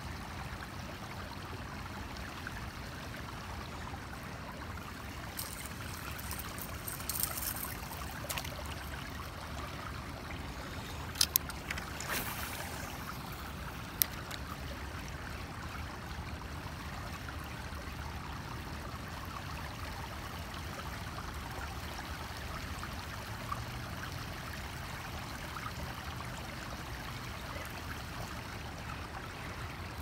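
Steady rush of river water with a few sharp clicks and knocks around the middle.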